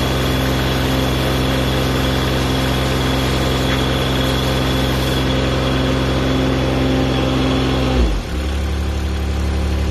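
Excavator engine running steadily, then dropping quickly to a lower speed about eight seconds in.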